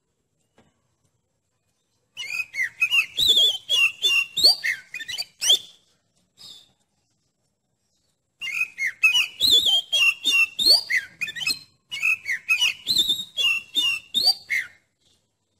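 Oriental magpie-robin (kacer) singing: fast runs of varied whistles and chattering notes. The song comes in three bursts of about three seconds each, starting about two seconds in, with a pause of about two seconds after the first.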